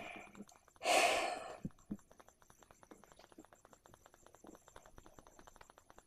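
A person sighing: one loud breath out about a second in, lasting under a second.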